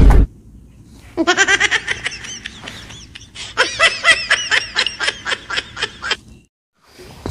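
Laughter: a long run of quick, rapid laughs that starts about a second in and stops about a second before the end.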